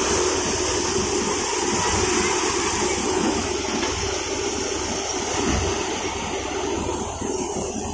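Paddy thresher running steadily with paddy being fed into its spinning drum: a constant low drone under a rough, rushing noise of straw and grain being beaten through and blown out.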